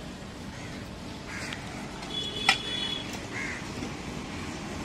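A crow cawing twice over a steady street background, and one sharp metallic clink with a short ring about halfway through, as a guava is set down in the metal pan of a hand balance scale.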